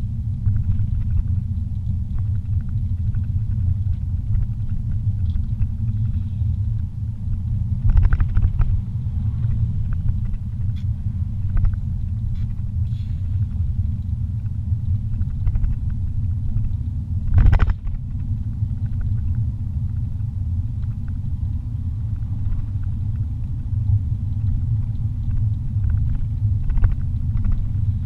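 Steady low rumble of a car's engine and tyres heard from inside the cabin while driving, with two brief thumps, one about eight seconds in and one about seventeen seconds in.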